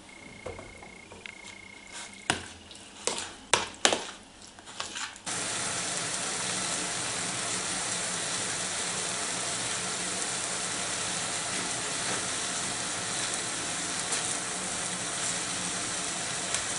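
Marinated beef and mushroom slices sizzling steadily in a frying pan, starting abruptly about five seconds in. Before that come a thin high steady tone and a handful of sharp clicks and knocks.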